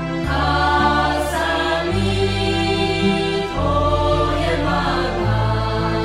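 Music: a choir singing slow sustained chords over a bass line that moves to a new note about every second and a half.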